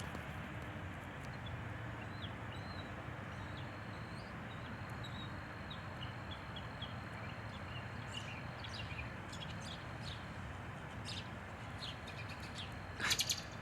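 Small songbirds chirping and twittering intermittently over a steady background hiss. A burst of louder, sharper calls comes near the end.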